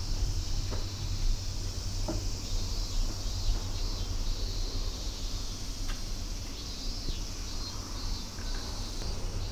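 A steady, high-pitched insect drone over a continuous low rumble, with a few faint clicks.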